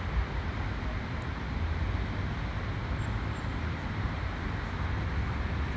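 Steady outdoor city street ambience: distant traffic as a low rumble under an even hiss.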